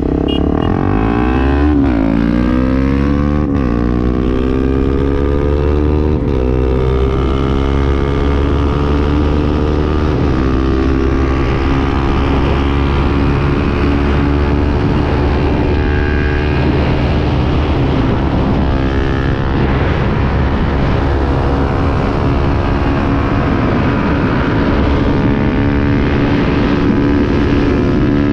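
Two Honda single-cylinder motorcycles, a CB300 and a Tornado 250 with a Protork exhaust, accelerating at full throttle side by side from a rolling start. The engine pitch climbs and drops back at each upshift, about 2, 3.5, 6 and 10 seconds in, then holds steady at high speed with wind noise.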